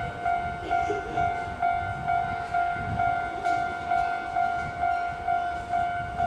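Japanese level-crossing alarm ringing its electronic bell tone about twice a second.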